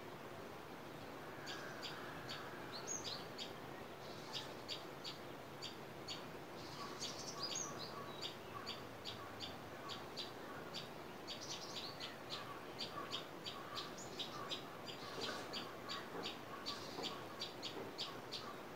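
Early-morning outdoor recording of small birds chirping: short high chirps, sparse at first, come quicker and more regularly after the first few seconds, over a steady background hiss.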